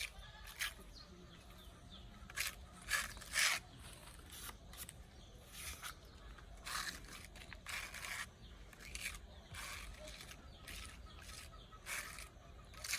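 Short scraping strokes, one at a time and unevenly spaced, a few louder ones around three seconds in and again near the end, over faint background noise.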